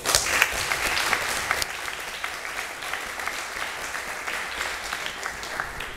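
Audience applauding, starting suddenly, loudest in the first second or so and then thinning out and fading slowly.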